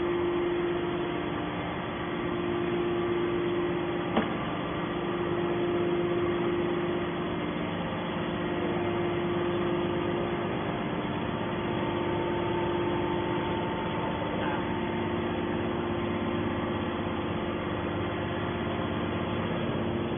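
Hydraulic metal baler's motor and pump running with a steady hum and a constant tone, and one short click about four seconds in.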